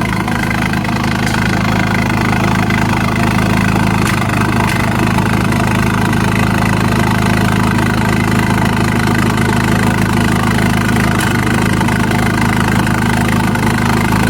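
Toyota Kijang LGX engine idling steadily through an aftermarket diesel-style tailpipe muffler, a low, even idle note.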